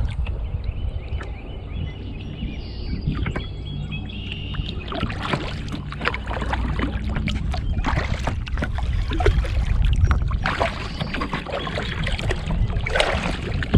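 Kayak moving on the water: irregular splashes and knocks against the hull, mostly from about five seconds in, over a steady low rumble.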